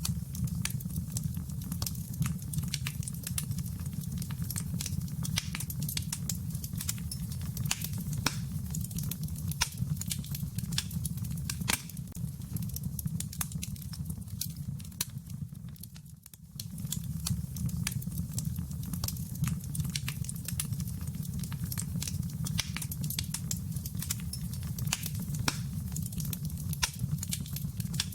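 Wood fire crackling in a fireplace: a steady low rumble under irregular sharp pops and snaps. The sound drops away briefly about sixteen seconds in, then resumes.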